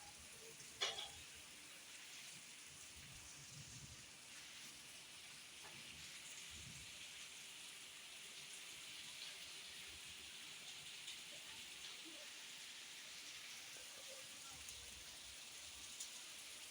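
Heavy rain falling, a steady even hiss. There is one sharp click a little under a second in.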